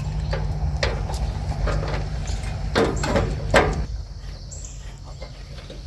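Low rumble that eases off about four seconds in, with several light knocks and a couple of creaking scrapes as the gazebo's roof hooks and parts are handled. Crickets chirp faintly near the end.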